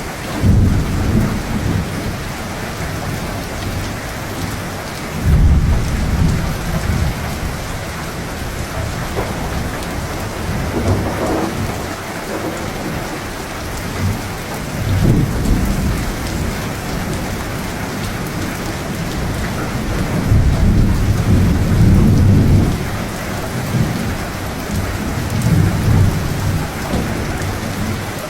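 Thunderstorm: steady heavy rain with rolling thunder that swells and fades several times, the longest rumble about twenty seconds in.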